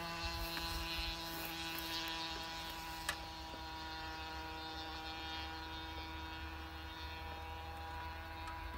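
Faint steady electric hum made of several tones, over low wind rumble on the microphone, with a single click about three seconds in.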